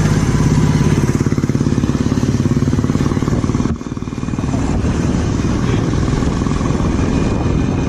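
Bajaj Pulsar 180's single-cylinder engine pulling away and accelerating along the road. Its sound drops briefly a little under four seconds in, then picks up again.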